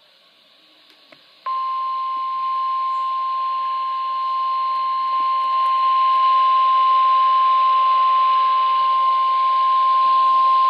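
NOAA Weather Radio 1050 Hz warning alarm tone sounding from a weather radio receiver for the required weekly test: one steady, high, unbroken tone that starts about a second and a half in, over faint radio hiss.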